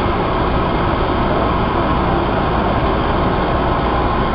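Bombardier 01800-series Red Line subway car running through a tunnel: a steady rumble of the moving train heard from inside the car.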